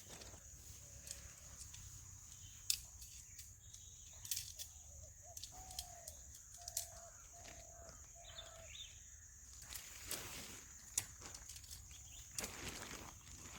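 Faint forest ambience: scattered crackles and rustles, a steady high hiss, and, midway through, a bird calling a short series of about five brief notes.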